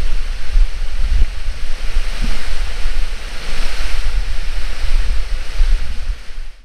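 Wind buffeting the microphone in loud, uneven gusts over a steady rushing hiss.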